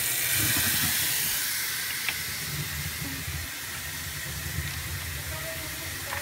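Kitchen faucet running water into a stainless steel sink: a steady rushing hiss of water.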